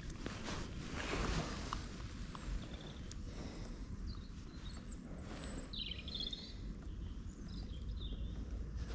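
Quiet lakeside ambience: a steady low rumble of outdoor background noise with a few faint small-bird chirps in the second half, and light clicks and rustles of hands handling a freshly landed bream.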